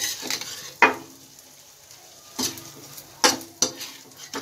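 Metal spatula scraping and clanking against a kadai about five times, lifting stuffed bitter gourds out of the hot oil. Light frying sizzle runs between the strokes.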